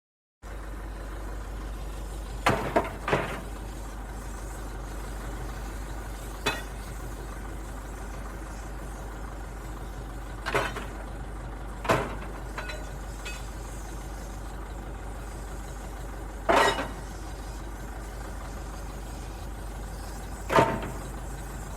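Excavator's diesel engine running steadily at a low rumble while the machine works, with sharp clanks: three in quick succession about two and a half seconds in, then single clanks every few seconds.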